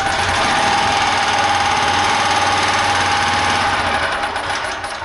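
Portable generator's small gasoline engine running loudly with a heavy knock from a failed connecting-rod bearing, a steady whine riding over the clatter. The noise dies down near the end as the engine winds down.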